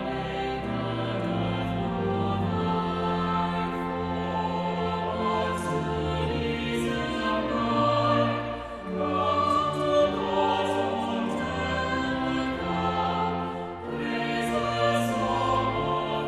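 Choir singing in sustained notes, with the sung consonants audible as short hisses.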